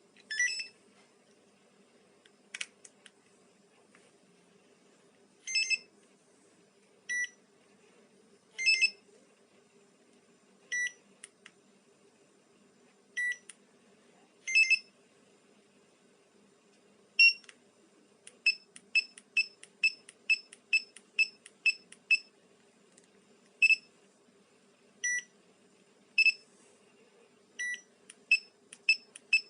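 Car alarm key fob's piezo speaker beeping: short beeps at a few different pitches, scattered at first, then a quick run of about a dozen beeps around three a second a little past the middle, and more beeps toward the end.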